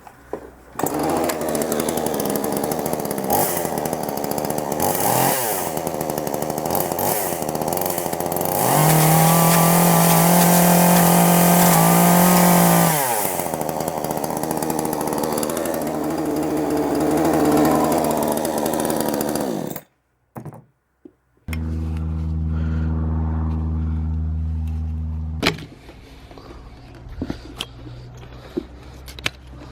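Chainsaw running and revving up and down repeatedly as it cuts into an iPhone 7, with a long full-throttle stretch in the middle. The sound breaks off abruptly about two-thirds of the way through, then a lower, steady engine note runs for a few seconds before giving way to quieter sound with a few sharp clicks.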